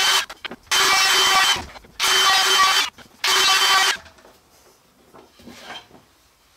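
Router with a 1/16-inch roundover bit cutting along the edges of maple stock, in four short passes of under a second each that start and stop abruptly, followed by faint handling.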